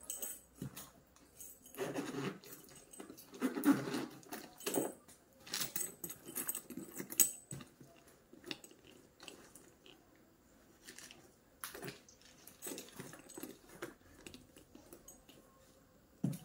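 Rustling and crinkling of plastic wrapping and the handling of a new crossbody bag and its strap, in irregular bursts with quieter gaps.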